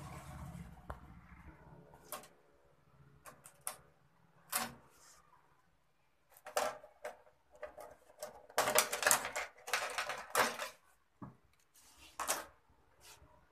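Handling noise from LED backlight strips and tools on a TV's metal back panel: scattered clicks, taps and scrapes, with a longer run of dense scraping and clattering about nine to ten seconds in.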